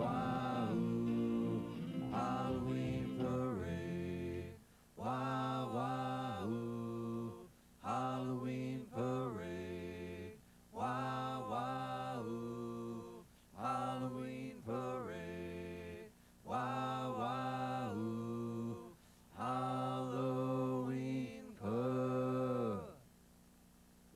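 The close of a rock ballad: wordless singing in short sung phrases with short breaks between them, over light instrumental backing. The music stops about a second before the end.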